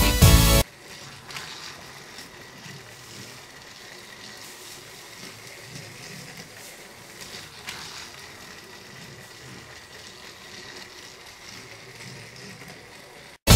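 Battery-powered Fisher-Price TrackMaster Thomas engine running on plastic track: a steady, quiet motor whir with faint clicking and rattling from the wheels on the track. A burst of background music cuts off abruptly just at the start.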